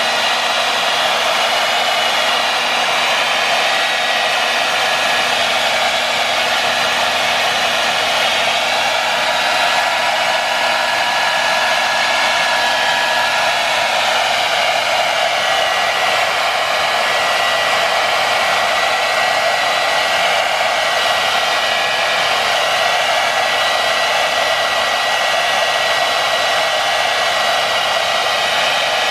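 Hair blow-dryer running steadily: a continuous rushing blow of air with a thin, high, steady whine.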